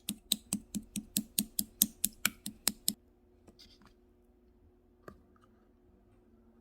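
Jelly slime being pressed in a quick, even rhythm, making a run of about thirteen sharp clicking pops, four to five a second. The pops stop after about three seconds, with one more click about five seconds in.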